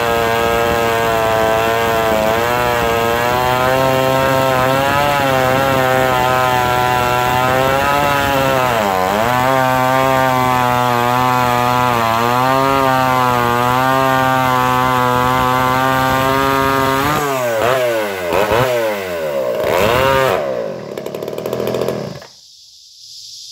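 Craftsman two-stroke chainsaw with a homemade dual-port muffler of square steel tubing, running at high revs while cutting through a log, its pitch wavering under load and dipping briefly about nine seconds in. Near the end the engine revs down and up a few times, then cuts off abruptly.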